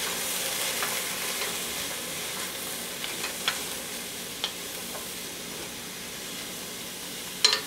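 Chopped vegetables sautéing in olive oil in a stainless steel stockpot, sizzling steadily as they are stirred with a wooden spoon, with a few light clicks against the pot and a sharper one near the end.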